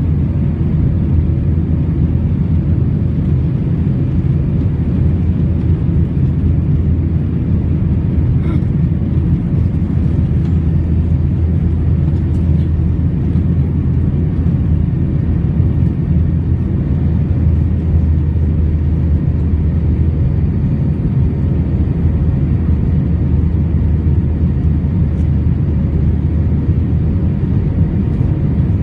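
Airbus A319 jet engines and airflow heard from inside the cabin during the climb after takeoff: a loud, steady low roar with a faint steady hum above it.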